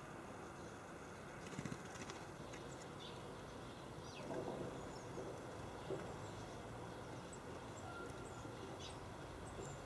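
Small garden birds at a feeder give short, high chirps now and then over a steady background hiss, with a few dull thumps.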